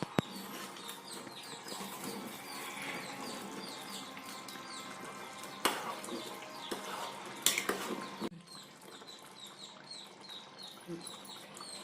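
A metal utensil clinks sharply against a cooking pot a few times, with stirring noise that drops away near the end. Throughout, a small bird chirps in a quick repeated series.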